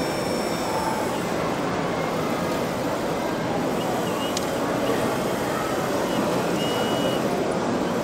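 Steady din of a busy exhibition hall with a crowd's chatter blurred into it. There is a click about halfway through and a couple of short high tones near the end.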